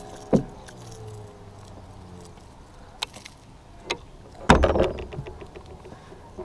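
Handling noises in a fishing kayak while a white bass hangs on the line: scattered clicks and knocks, with one louder thump and rustle about four and a half seconds in.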